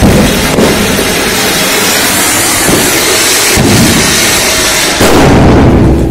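Ground fountain firework (flower pot) spraying a tall column of sparks with a loud, steady rushing hiss. It comes on suddenly at full strength and grows louder about five seconds in before dying away.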